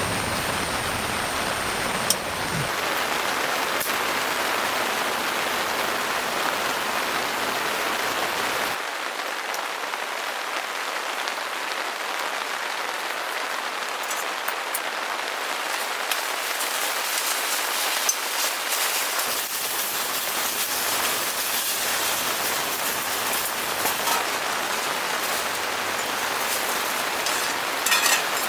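Heavy rain falling on a tent: a dense, steady patter, with a few small clicks and knocks here and there.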